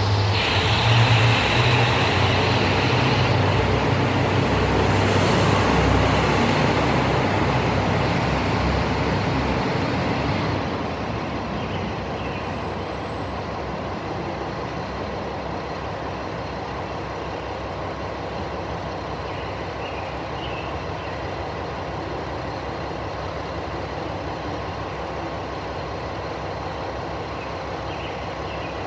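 Diesel engines of a JR Shikoku KiHa 185-series tourist railcar set running loud as the train pulls away, with a strong low engine drone. After about ten seconds the sound drops off and settles to a steadier, quieter rumble as the train moves into the distance.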